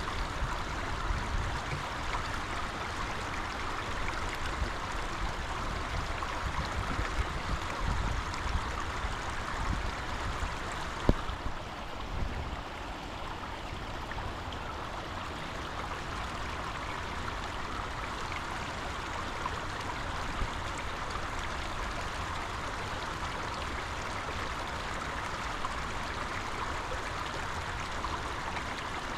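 Water running steadily, a continuous rushing flow, with a single sharp knock about eleven seconds in.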